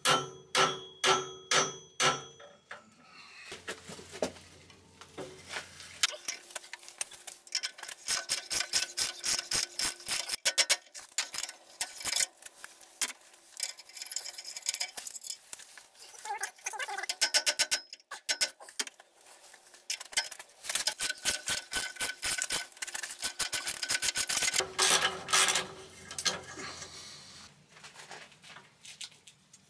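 Hammer striking a socket onto corroded exhaust manifold-to-downpipe nuts, about eight sharp metal blows in the first couple of seconds. Then a socket ratchet clicks in quick runs, with pauses, as the rusted nuts are worked loose.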